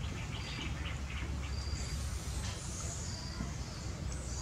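Woodland ambience: a bird repeats a short high note about once a second while other birds chirp, over a steady low rumble.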